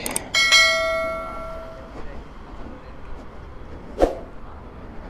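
Subscribe-button animation sound effect: a click, then a bright chime that rings out and fades over about a second and a half. A short, sharp pop follows about four seconds in, over faint street noise.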